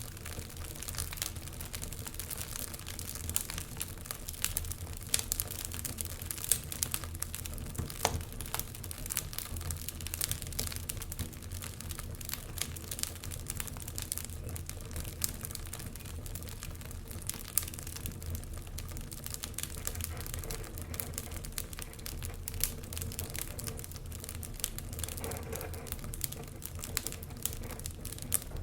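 Wood fire crackling in a fireplace: frequent small irregular pops and snaps, a few louder ones, over a steady low rumble.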